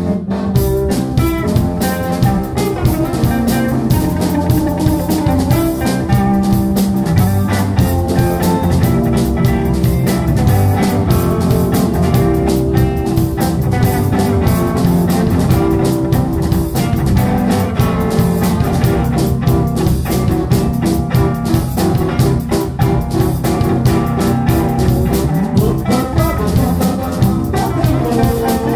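A live band playing an instrumental number: a semi-hollow electric guitar over a drum kit, with keyboards.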